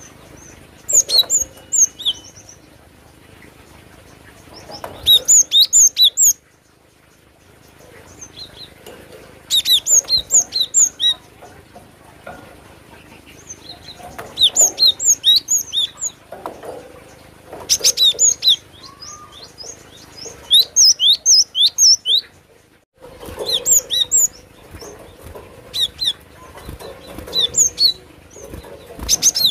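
Cinereous tit (gelatik batu) singing: bursts of rapid, sharp, high chirps, each burst lasting about a second and repeated every few seconds.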